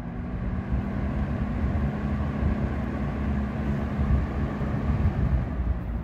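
Wagner Electric 16-inch oscillating table fan from the mid-1930s running: a steady low motor hum under loud rushing air, heard with the microphone right at the motor's vented rear housing.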